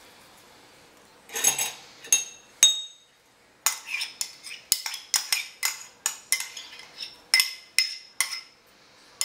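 Metal spoon clinking and scraping against a small ceramic cup, knocking chopped onion out into a bowl: a couple of ringing clinks in the first part, then a quick run of about a dozen sharp taps, two to three a second.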